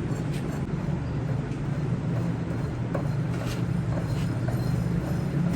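A steady low mechanical hum with a few faint light clicks.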